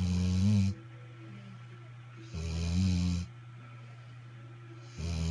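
Snoring in an even rhythm: three rough, buzzing snores of about a second each, roughly two and a half seconds apart.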